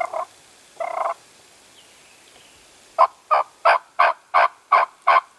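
Turkey yelps: two short calls near the start, then from about three seconds in a steady run of about nine evenly spaced yelps, roughly three a second.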